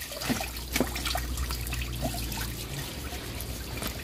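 Water trickling and splashing, with scattered small clicks and knocks over a low steady rumble.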